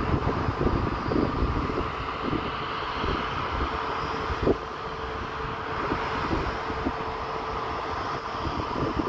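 Jet airliner's engines running at low power while taxiing at a distance: a steady whine with a hum under it. An uneven low rumble with irregular thumps runs underneath.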